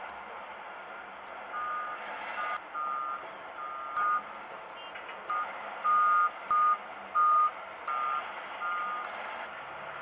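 Electronic warning beeps like a vehicle's reversing alarm: a series of short two-tone beeps, unevenly spaced, starting about a second and a half in and stopping shortly before the end, over a steady hiss.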